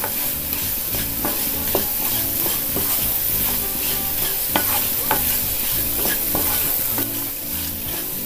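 Potato cubes, onion and spice masala sizzling in oil in a non-stick pan while a wooden spatula stirs them, scraping and tapping against the pan. The masala is being fried until its raw smell is gone.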